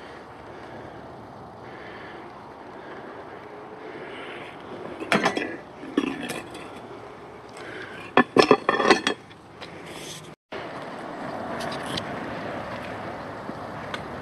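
Chrome motorcycle luggage-rack and backrest parts clanking against each other and the concrete floor as they come off the bike: a cluster of sharp metal clinks about five seconds in and a faster rattle of clinks about eight seconds in. After a short break, a steady rushing noise fills the last few seconds.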